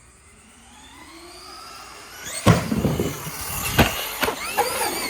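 Traxxas Stampede RC truck's electric motor whining up in pitch as it accelerates, then a hard impact about two and a half seconds in and further knocks a second or so later as it lands and bounces. Between the knocks the motor whine rises and falls.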